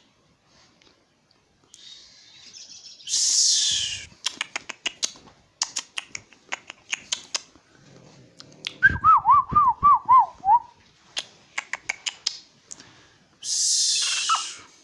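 Little owl calling: two harsh, hissing screech calls of about a second each, one a few seconds in and one near the end. Between them come runs of rapid sharp clicks and a quick series of about six wavering whistled notes in the middle.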